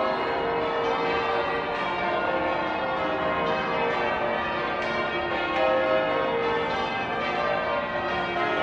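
Church bells rung in changes, a continuous peal of many overlapping bell tones.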